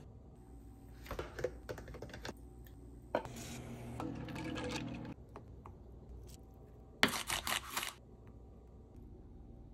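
Kitchen food-prep sounds: scattered light clicks and clinks, then a noisy, watery rustle a little after three seconds in, as metal tongs lift an egg from a bowl of ice water. About seven seconds in comes a quick run of crisp clicks lasting about a second.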